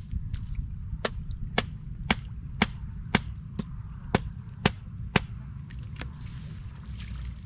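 A wooden stake being knocked into the ground with a wooden stick: about nine sharp knocks at a steady two a second, starting about a second in and stopping a little after five seconds.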